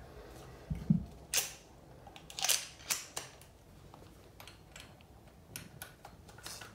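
Scattered sharp clicks and light scrapes of a screwdriver working on a steam radiator valve's handle, with a dull knock about a second in.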